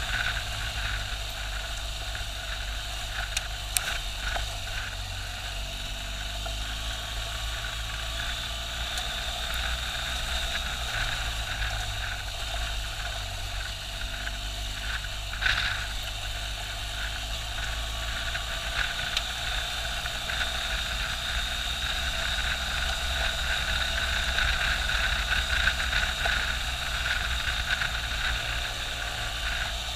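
BMW R1200GS motorcycle riding along a gravel forest track: its boxer twin engine running steadily under the constant rush of wind and tyre noise, with a couple of brief knocks along the way. The noise builds a little in the last third.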